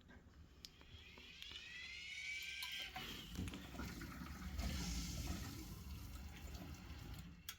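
Water rushing, with a short rising-and-falling squeal about a second in.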